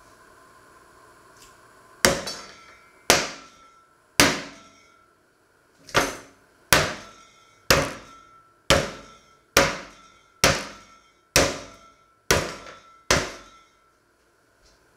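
A stainless steel saucepan's bottom pounding a slice of raw meat flat on a wooden cutting board: twelve thuds about a second apart, each with a short metallic ring from the pan.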